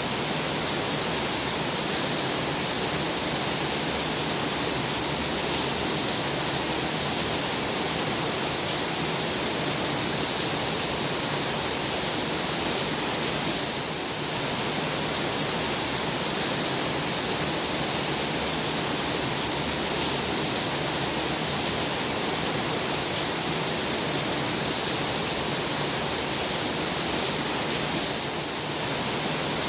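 Heavy rain falling steadily: a dense, even hiss, with a brief dip in level about every 14 seconds.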